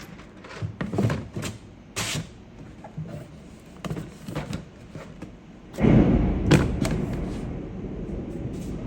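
Scattered clicks and knocks of boxes and packaging being handled, then about six seconds in a loud, low rumble of thunder that slowly fades.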